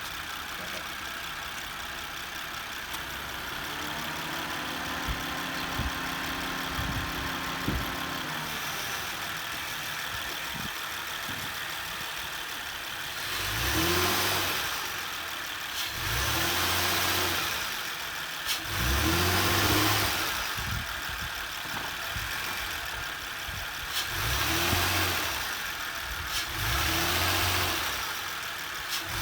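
2008 Honda Accord's 3.5-litre V6 idling, then blipped five times in short revs, each rising and falling. The owner suspects bad motor mounts and an unexplained engine noise, with the hydraulic belt tensioner already replaced.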